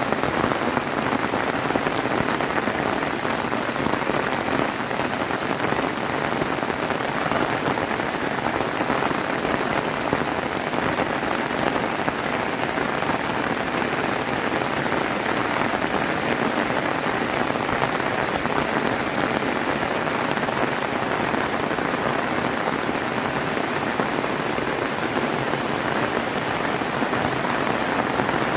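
Heavy rain pouring down, a steady, dense hiss of drops on surfaces that holds even throughout.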